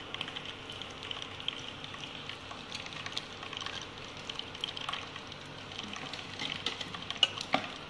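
Silicone spatula stirring dry flour in a steel bowl: a soft, steady rustling hiss with light ticks of the spatula against the bowl.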